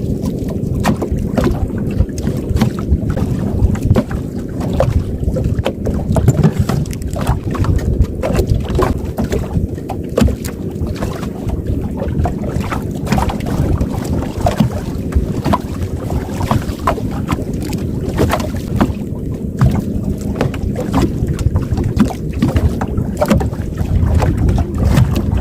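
Wind buffeting the microphone on a small fishing boat at sea, a steady low rumble with frequent brief knocks and clicks throughout.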